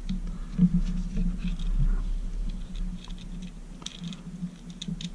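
Fingers handling a tiny plastic micro-quad frame and twisting its thin brushed-motor wires: scattered small clicks and rustles, over a steady low hum.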